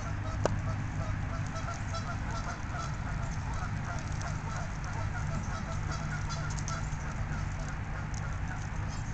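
Birds calling in many short, repeated notes over a steady low hum, with a single sharp click about half a second in.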